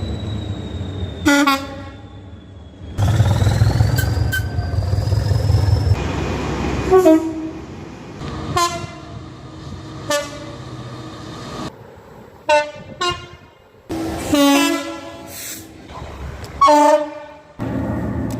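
A string of short British train horn blasts, about eight of them, from several different clips cut one after another. Low train running rumble lies underneath, loudest a few seconds in.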